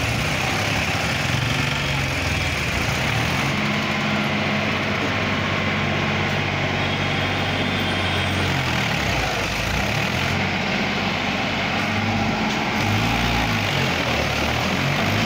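Mahindra 265 tractor's three-cylinder diesel engine running under way, its pitch rising and falling a few times in the second half as it is revved.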